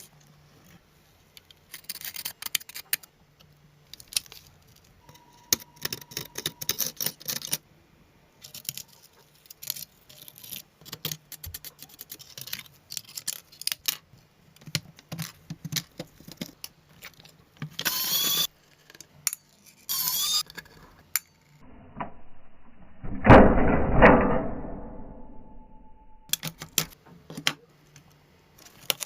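Clicks, taps and light metallic rattling of small hard parts and tools being handled. There are two brief high rasping sounds around the middle, and a louder noise of about two seconds near the end that fades out.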